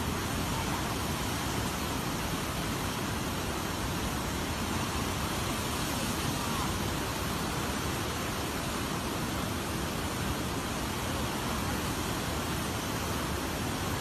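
Muddy floodwater surging and churning past a riverbank: a steady, unbroken rushing noise.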